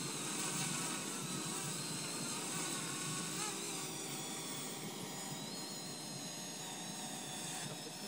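Parrot Anafi quadcopter's propellers whining as it hovers overhead, the pitch wavering up and down as the motors adjust, over wind noise on the microphone.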